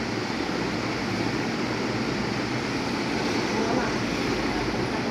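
Three-blade ceiling fan running at speed: a steady rush of moving air with a low hum underneath.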